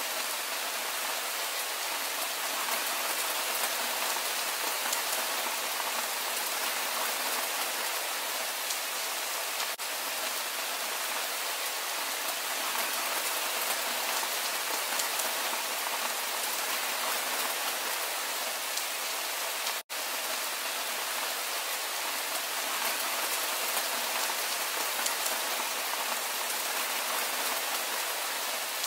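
Steady rain falling on fields and trees: an even hiss that cuts out for an instant about two-thirds of the way through.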